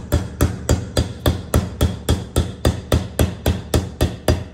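Hammer tapping a wheel hub's grease seal into place, an even run of sharp strikes about three a second.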